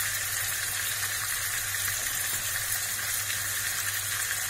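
Meat-topped bread triangles (tramezzini di carne) shallow-frying in hot oil in a pan, with a steady sizzle.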